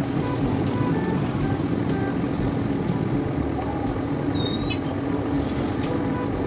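Vehicle engine running steadily with road noise while driving, heard from the driver's seat.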